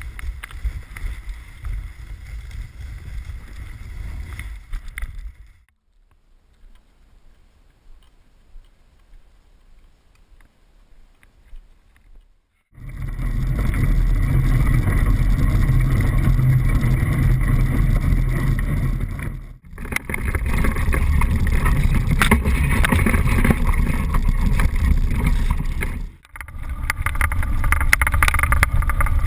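Action camera's own microphone on the move: wind rush and low rumble, moderate at first, then faint for several seconds. About thirteen seconds in it turns much louder with the rumble and rattle of a handlebar-mounted camera on a mountain bike rolling over a rough dirt trail. The sound cuts off abruptly twice.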